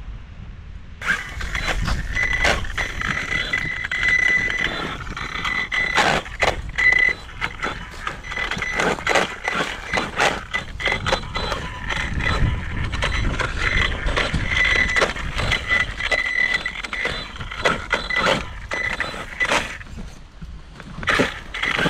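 Axial RYFT RC rock crawler's electric motor and drivetrain giving a steady high whine that swells and eases with the throttle, with scattered knocks and clicks of the Pro-Line Black Mamba tires and chassis scrabbling over rock as it climbs.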